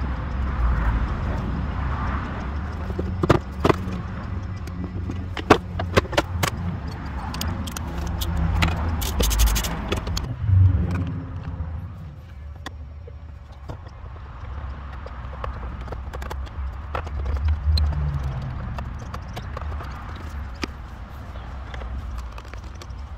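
Plastic dashboard trim of an EK Honda Civic being pried loose and handled: a run of sharp clicks, knocks and scraping, dense in the first half and sparser later, over a low rumble.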